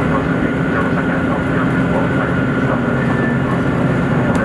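Steady running noise of a JR Shikoku tilting diesel limited-express train at speed, heard inside the passenger cabin: the diesel engine's drone and the wheels rolling on the rails, with faint clicks from the track.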